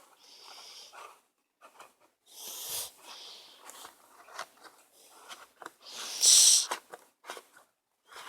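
Toy card-dispensing machine being handled as its lever is turned: scattered clicks and rustling. About six seconds in comes a loud, short, breathy rush of noise.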